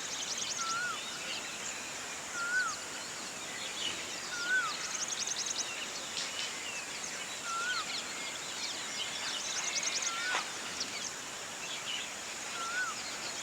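A bird repeating a short rising-and-falling whistle about every two seconds, six times, over many faint high chirps.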